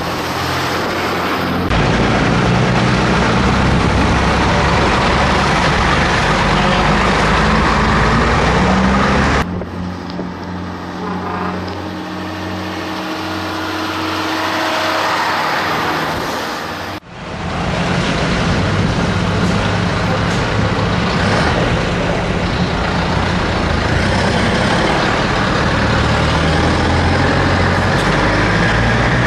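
Vintage Scania diesel trucks driving past one after another, their engines running steadily at low speed, the engine sound shifting sharply as each truck takes over.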